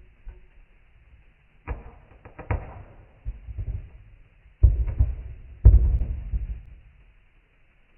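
Kinetic sand being dropped and squished, played back slowed down: a series of soft, low thuds with crumbling trails. The two loudest come past the middle.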